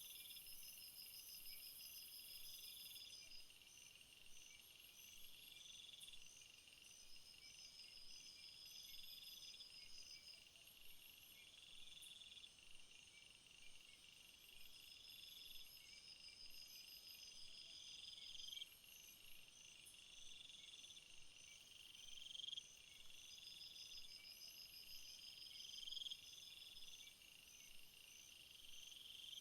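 A faint chorus of several insects chirping in a summer field, each repeating its own pattern: one phrase swells and repeats about every two and a half seconds, another is a longer pulsing trill that comes and goes, and a high, fast rattle runs underneath.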